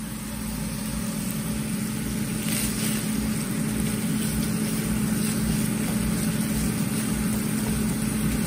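Browned sausage and cream cheese sizzling in a skillet on the stove, over a steady low hum. The sizzle grows a little louder over the first couple of seconds.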